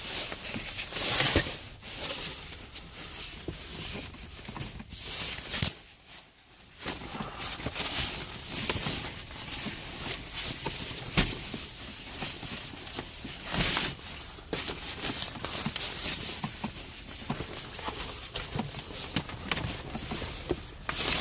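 A sunshade being handled and pushed into place against a window: rustling and crinkling with scattered light knocks and clicks.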